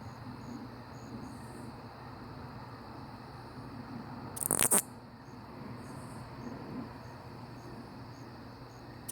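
Katydid calling: a short buzzing burst of rapid pulses about half a second long, heard about halfway through and again at the very end, some five seconds apart. Behind it is a faint steady insect chorus with soft chirps about twice a second.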